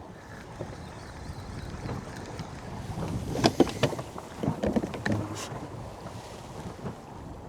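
Wind buffeting the microphone over water moving around a small boat, with a cluster of sharp clicks and knocks about halfway through and a few more shortly after.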